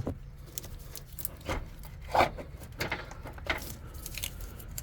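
Irregular clunks and scrapes of an old starter motor being worked out of a car's engine bay, knocking and rubbing against the engine and hoses.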